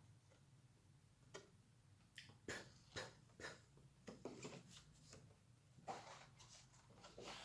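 Near silence, with a scattering of faint short taps and clicks from small objects being handled.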